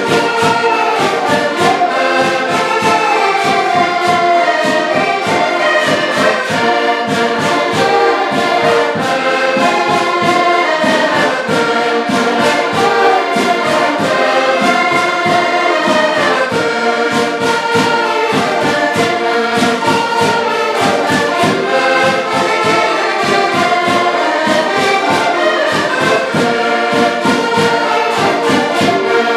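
An ensemble of diatonic button accordions plays a folk tune together in full chords, with a bass drum beating steady time.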